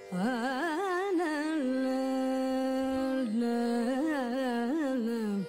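Background music in a Carnatic style: a lead melody with wavering, ornamented notes and long held notes over a steady drone. The melody comes in just after the start and breaks off near the end.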